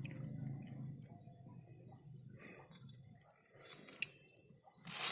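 Small motorcycle parts being handled: faint clicks and light rustling, with a louder rustle near the end.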